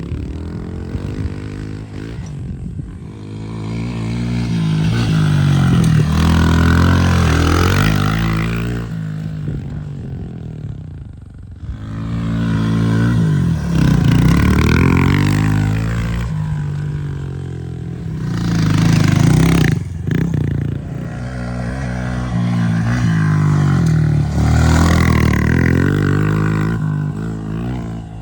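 Honda CRF110 pit bike's small single-cylinder four-stroke engine revving up and easing off again and again as it is ridden over dirt, in four or five surges of acceleration, with a brief sharp drop in pitch about twenty seconds in.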